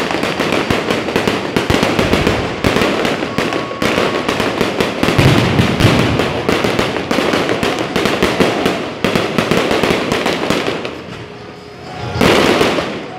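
Aerial fireworks going off in quick succession: a dense crackle of many bangs that thins out about eleven seconds in, followed by one more loud burst near the end.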